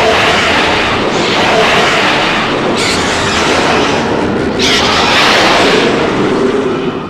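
Grand King Ghidorah monster sound effect: a loud, harsh, noisy rumble that swells again several times, about every one to two seconds, and eases off near the end.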